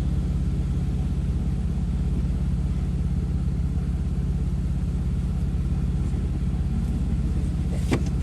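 Off-road 4x4's engine running steadily at an even, low speed, with no revving. There is one sharp click near the end.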